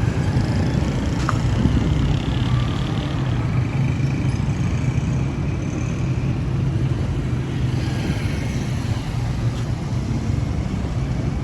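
Motor-vehicle noise: a steady low rumble of engine and road sound with no clear breaks.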